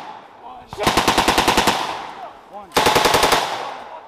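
Belt-fed machine gun firing two bursts of rapid automatic fire, a second or less each and about a second apart, each shot trail fading in echo.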